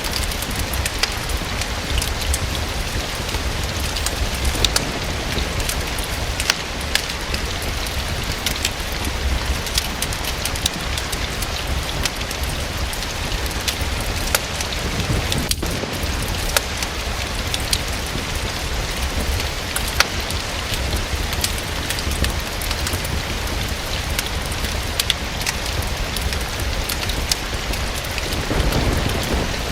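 Steady rain falling, an even hiss dotted with frequent sharp drop clicks, over a low rumble; a soft swell of deeper sound rises near the end.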